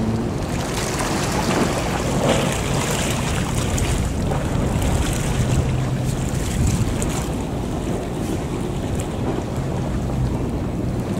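Wind rushing over the microphone above the sound of open sea water, with a faint low hum that comes and goes.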